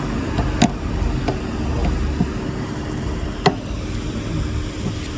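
1987 Pontiac Grand Prix on the move: steady engine and road rumble, with a sharp click less than a second in and another about three and a half seconds in.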